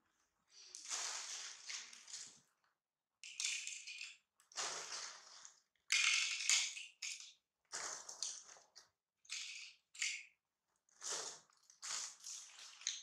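Crinkling and crunching from a plastic bag of crisp snack chips being handled and the chips being broken and eaten, in about ten short irregular bursts.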